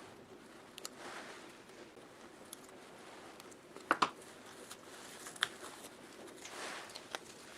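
Handling sounds at a workbench: scattered light clicks and taps, with a sharper double knock about four seconds in, and two soft rubbing or wiping sounds, one about a second in and one near the end.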